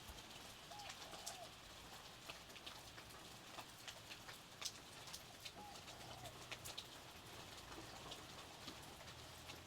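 Light rain pattering, with scattered individual drops ticking, and a bird giving a short call twice, about a second in and again around six seconds in.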